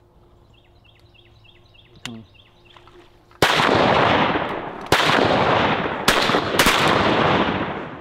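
Four shotgun blasts in about three seconds, the first about three and a half seconds in, each ringing on in a long echo: duck hunters firing at incoming wood ducks.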